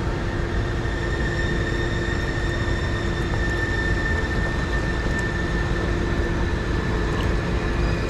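Rushing creek water with a steady mechanical hum over it: a low drone and a thin, high, even whine that hold throughout.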